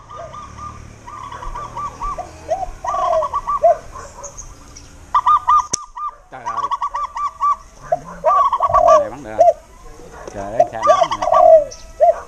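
Birds calling in quick runs of short, arching notes at two pitches, the runs sometimes overlapping, with a short break near the middle.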